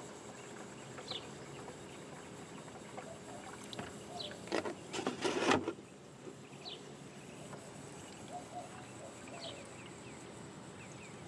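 Coolant pouring from a plastic jug into a no-spill funnel already full of coolant, with a louder noisy spell about five seconds in as the pour ends. Then faint outdoor quiet with a few short high chirps.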